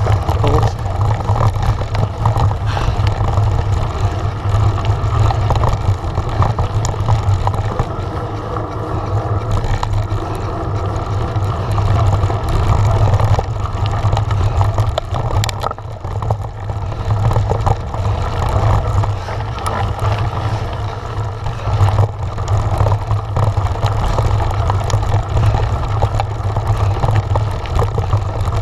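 Steady wind rumble on a handlebar-mounted camera's microphone as a Giant Trance mountain bike rolls over a loose, stony track, with the knobby tyre crunching on gravel and the bike rattling and knocking over the stones.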